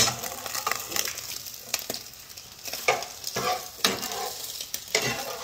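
Scrambled egg sizzling in a nonstick frying pan while a slotted metal spatula stirs and scrapes it, with a scrape or tap on the pan every second or so.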